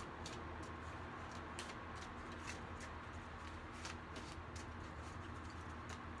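A small oracle card deck being shuffled by hand, the cards giving soft, irregular clicks, about one or two a second, over a steady low hum.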